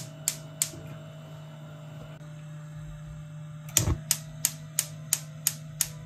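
Gas hob's electric spark igniter clicking about three times a second as a burner is lit, stopping after about a second, then starting again about four seconds in with a low thud as another burner is lit. A steady low hum runs underneath.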